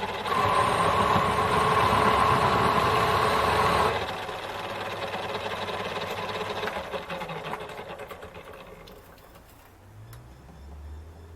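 Metal lathe running as a boring bar cuts inside the through hole of a cast pulley, with a steady whine for the first four seconds or so. Then the cut ends, the lathe runs more quietly, and it winds down near the end.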